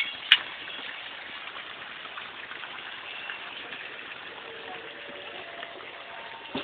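Fountain water jets arcing into a pool, a steady rushing splash of water, with one sharp click about a third of a second in.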